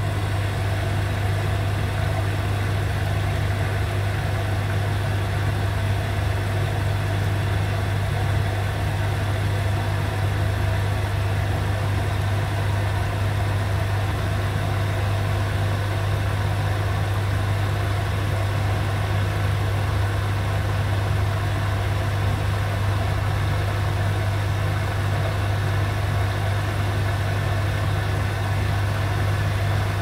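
Beko WX84243OW front-loading washing machine running a wash: a steady, unchanging low hum with a constant rushing noise over it.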